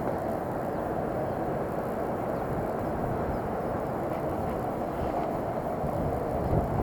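Spinning reel being wound steadily on the retrieve, a continuous even whirr of the reel's gears and rotor.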